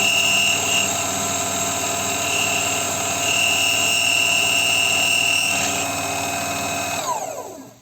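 Small metal lathe running, with a high-pitched squeal that comes and goes as the cutter works the metal. About seven seconds in, the lathe is switched off and its motor winds down to a stop, its pitch falling.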